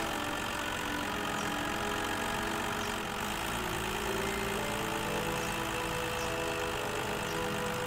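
Cartoon tow truck engine sound effect, running steadily as the truck drives along.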